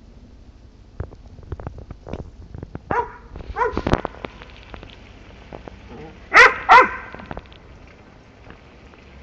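A dog barking in play: two barks about three seconds in, then two louder barks in quick succession a little past halfway, with scattered light taps earlier on.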